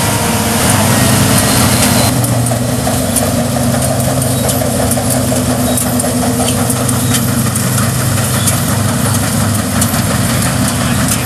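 New Holland CX8060 combine harvester's diesel engine running steadily with a low hum as the machine drives across a field on rubber tracks.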